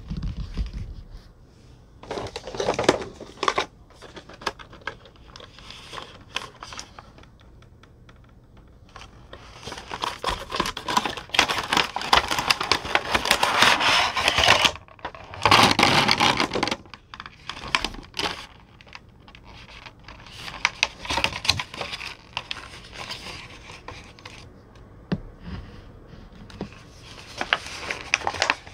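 Cardboard box and thin clear plastic tray being handled and opened: irregular crinkling, scraping and clicking of packaging, loudest in a long stretch through the middle.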